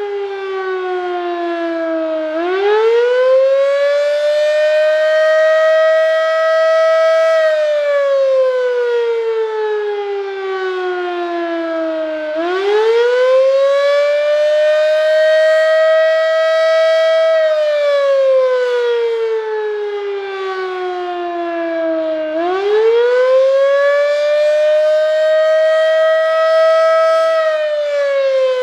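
Darley 3V8 fire siren wailing. Its pitch climbs quickly, holds high for about five seconds, then slides slowly down. The cycle repeats about every ten seconds, with three rises in all.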